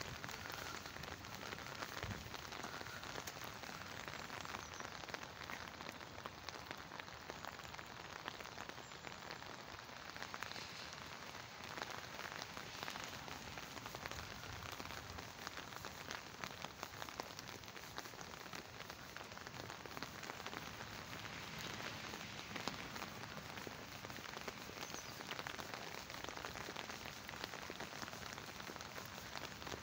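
Steady rain falling on a wet tarmac path and its puddles: an even hiss of dense, fine pattering drops.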